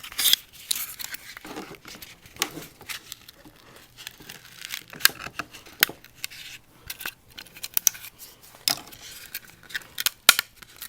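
Cured carbon fiber part popping and crackling as it is pried off its mould plug with a wooden tongue depressor: a string of irregular sharp snaps and clicks as it releases.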